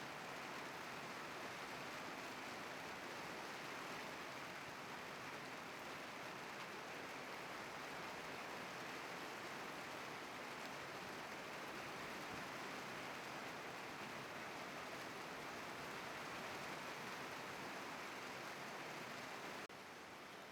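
Heavy rain falling in a steady hiss, which becomes a little quieter and thinner near the end.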